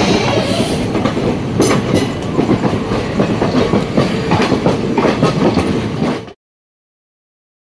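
Simhapuri Express passenger train running along the track: a steady rumble with the clickety-clack of wheels over rail joints and scattered sharp knocks. It cuts off suddenly about six seconds in.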